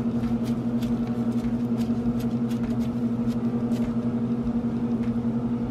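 A steady low hum, with scattered light clicks and squishes of plastic-gloved hands patting ground beef into a patty.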